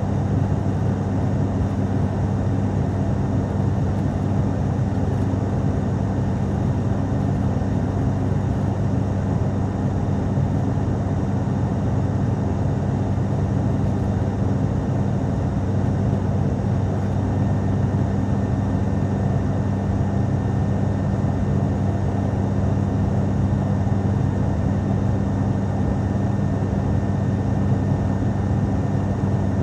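Cabin drone of an ATR twin-turboprop airliner in flight: a steady, even engine and propeller hum with a strong low tone over a constant rush of air.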